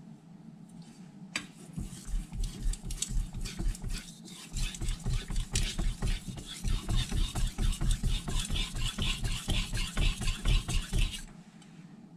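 Carbon-steel kitchen knife blade stroked rapidly back and forth on an unsoaked Naniwa Aotoshi 2000-grit whetstone, a fast, even scraping rhythm that raises a burr while the bevel is set. It starts after a light click, breaks briefly about four seconds in, and stops about a second before the end.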